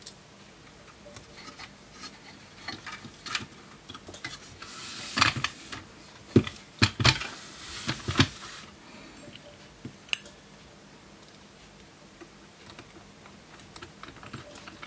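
Clicks, knocks and scraping from a hard drive and screwdriver being handled in a DVR's sheet-metal case, busiest in a run of louder knocks and slides from about five to eight seconds in.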